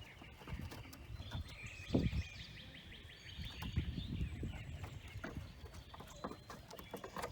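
Farm animals moving about close by, with scattered knocks and rustles and a louder low burst about two seconds in, while small birds chirp in the background.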